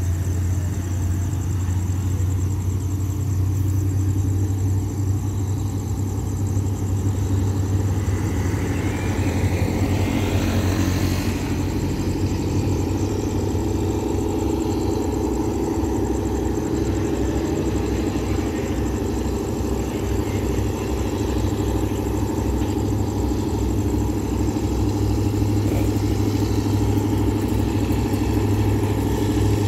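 Alsthom diesel locomotive No. 4415 running and building up power to pull away with its train, a steady low engine hum that grows stronger partway through. Around ten seconds in, a road vehicle passes close by.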